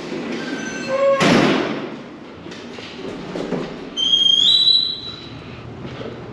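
Steel-framed entrance doors being pushed through: a short loud burst of noise about a second in, then a high metal hinge squeal, stepping up slightly in pitch, as a door swings open around four seconds in.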